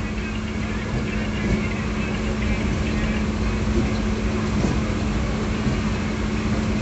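Passenger train coach rolling slowly along the track, a steady running rumble with a constant hum over it.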